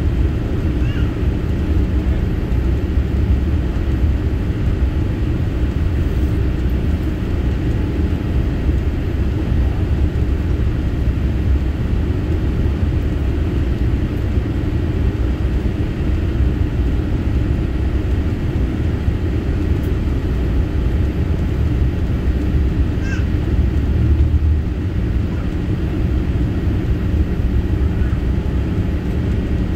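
Steady low rumble of engine and airflow noise inside the cabin of a Boeing 787-8 Dreamliner on approach, heard from a window seat beside its General Electric GEnx engine.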